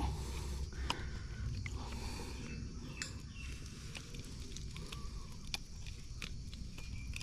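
Handling noise from a plastic fish-lip gripper holding a snapper with a lure in its mouth: a few separate sharp clicks over a steady low rumble.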